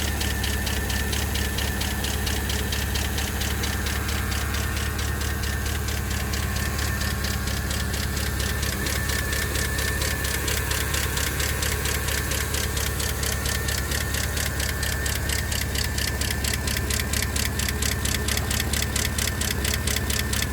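2012 Chevrolet Camaro SS's L99 6.2-litre V8 running at a steady idle, with a rapid, even ticking over the engine's hum: the owner's 'bad engine noise'.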